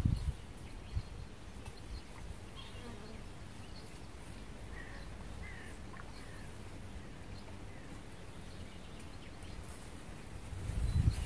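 An insect buzzing steadily near the microphone, with a few faint high chirps a few seconds in and a low rumble rising near the end.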